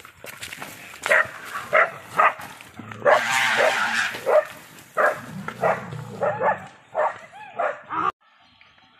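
A dog barking over and over in short, sharp barks, with a longer, harsher noise about three seconds in. The sound cuts off abruptly near the end.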